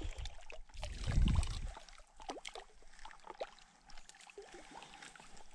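Light splashing and trickling water from a small hooked cutthroat trout being drawn in at the shoreline, a scatter of short irregular splashes and drips. A low rumble comes in the first two seconds.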